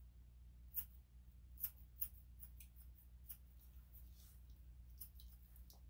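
Grooming scissors snipping through a long-haired Chihuahua's coat: faint, short, irregular snips, a few sharper ones in the first two seconds.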